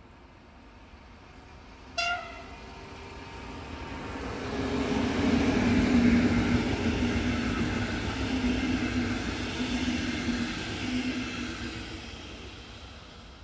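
A DB Regio class 112 electric locomotive gives one short horn toot, then passes hauling double-deck coaches. The wheel and rail noise swells to a peak and fades away.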